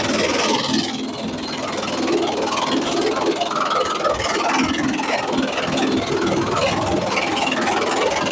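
Sawmill machinery running, with a loud, irregular rattling and whirring.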